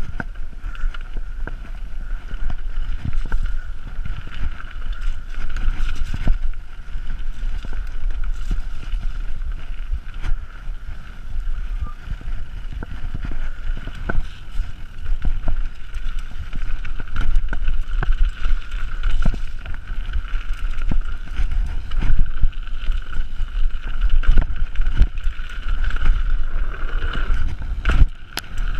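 Mountain bike descending a rough dirt trail at speed: wind rushing over the microphone with a low rumble from the tyres, and frequent knocks and rattles from the bike over roots and bumps, with a sharp knock near the end. A steady high-pitched buzz runs under it.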